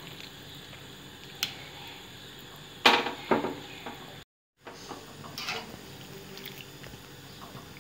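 Wire spider skimmer stirring cauliflower florets in simmering salted water in a metal kadai, with a few sharp metal clinks against the pan, the loudest about three seconds in, over a steady low bubbling hiss. The sound cuts out briefly just after four seconds.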